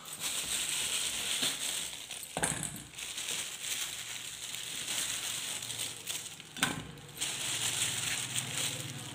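Thin plastic bag crinkling and rustling as a hand rummages through button mushrooms. Two sharper knocks, a little over two seconds in and again near seven seconds, come as mushrooms are put into a steel bowl.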